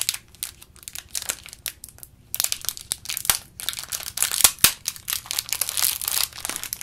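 Thin clear plastic wrapper of a small eraser packet being handled and crumpled in the fingers: irregular crinkling that grows busier after about two seconds.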